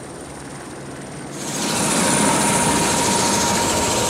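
Helicopter turbine and rotor running close by: a loud, steady rushing noise with a steady turbine whine that swells in about a second and a half in. Before that, quieter steady outdoor noise with a faint high whine.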